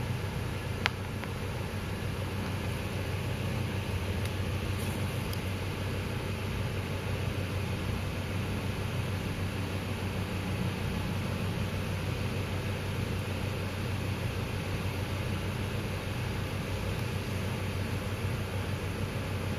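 A steady low hum with a constant hiss, unchanging throughout, and a single sharp click about a second in.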